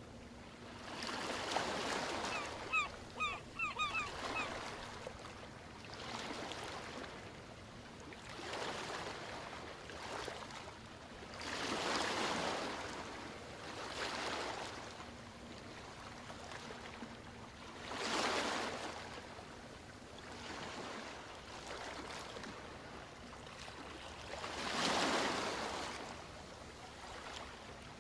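Ocean waves washing onto a shore, each wash swelling and fading every few seconds. About three seconds in, a bird gives a quick run of short, sharp calls.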